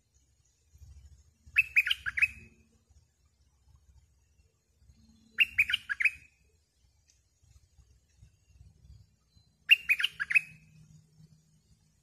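A bulbul singing: three short phrases, each a quick run of four or five sharp notes, about four seconds apart.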